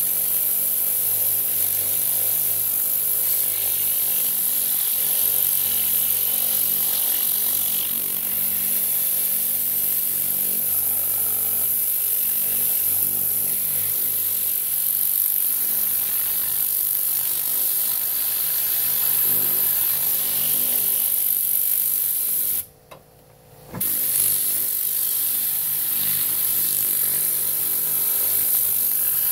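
Tornador Classic air cleaning gun running on compressed air at 90 PSI, spraying diluted all-purpose cleaner: a steady, high-pitched hiss of air over a steady low machine hum. Near the end all of it cuts out for about a second, then returns.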